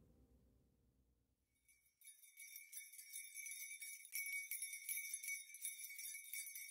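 Background music fading out to near silence, then faint high jingling from about two seconds in.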